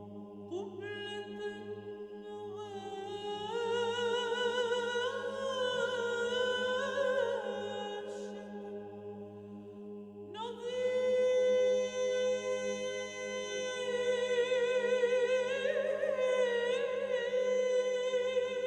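Background music: long held voice-like tones with vibrato over a steady low drone, swelling twice with a short lull in the middle.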